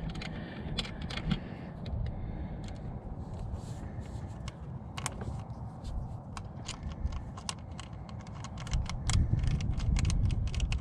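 Irregular light clicks and metallic taps of hand tools and hardware while connecting the jack's wiring at the battery, over a steady low rumble.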